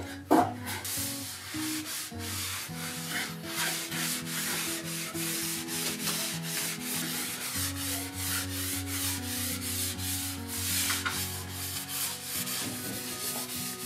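Cloth rubbing finish into bare wood in many quick back-and-forth wiping strokes, over soft background guitar music. A short knock sounds right at the start.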